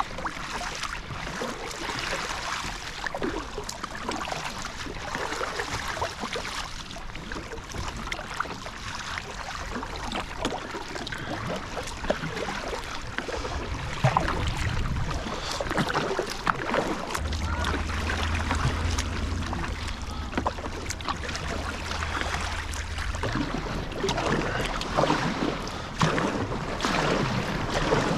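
Water splashing and lapping around a kayak, with many small splashes and knocks. A low rumble comes in for several seconds in the middle.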